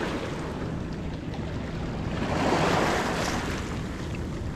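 Small waves washing against a gravel riverbank, with wind rumbling on the microphone; the wash swells once a couple of seconds in.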